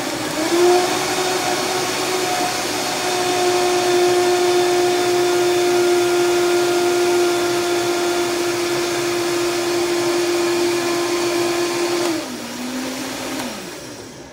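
Vitamix blender motor running to blend a smoothie. Its pitch steps up just after the start, then it holds a loud, steady whine. Near the end the pitch drops and the motor winds down.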